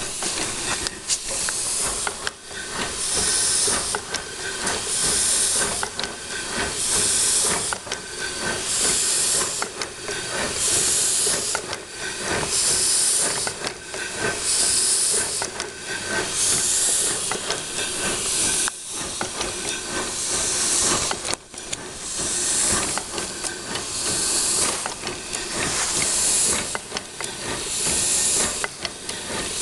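Live-steam 2-6-0 locomotive under steam: a continuous steam hiss with even exhaust puffs about every two seconds as the engine turns over slowly.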